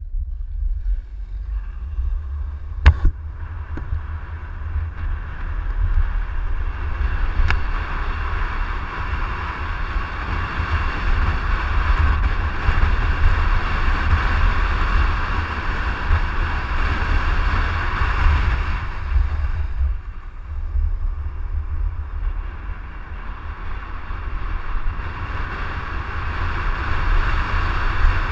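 Wind buffeting the microphone over the steady rolling noise of inline skate wheels on rough asphalt during a fast downhill run. A single sharp knock comes about three seconds in, and the noise eases briefly about two-thirds of the way through.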